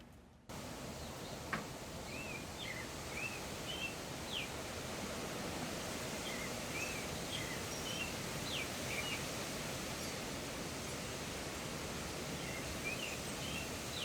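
Steady outdoor background noise with a small songbird chirping short phrases of a few quick notes, three times. A single click comes about a second and a half in.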